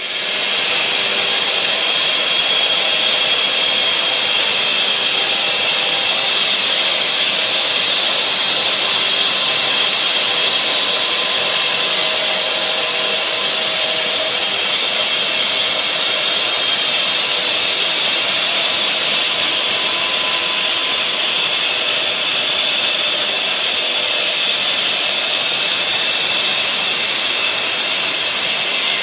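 Husqvarna K3000 14-inch electric cut-off saw cutting concrete dry: a steady high-pitched whine with grinding noise that steps up in level right at the start as the blade goes in, then holds.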